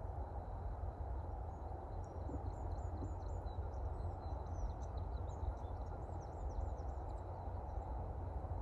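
Steady low outdoor rumble. From about two seconds in until near the end, a small bird gives a quick run of faint, high chirps over it.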